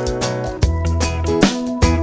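Background music: pitched notes with sharp attacks over sustained bass notes.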